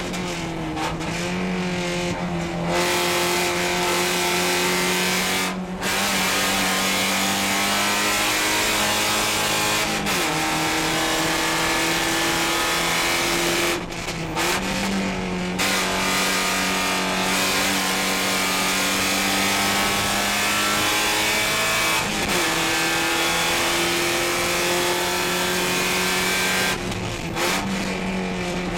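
Porsche 944 Spec race car's four-cylinder engine at racing speed, heard from inside the cockpit. Its pitch climbs steadily and drops sharply about five times, at gear changes and lifts for corners.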